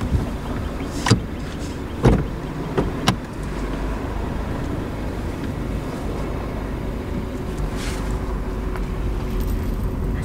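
Ford compact SUV heard from inside the cabin, engine running with a low rumble as the car backs slowly out of a parking space. A few sharp clicks and one louder thump about two seconds in.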